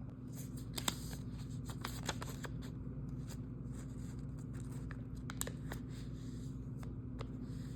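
A sheet of paper rustling and crinkling as it is folded and creased by hand, in scattered light crackles that are busiest in the first two seconds or so, over a steady low hum.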